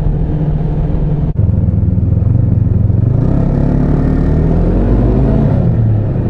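Snowmobile engine running under way, heard from the rider's seat. There is a brief dropout about a second in, then the engine note grows stronger and its pitch rises and falls over the next few seconds.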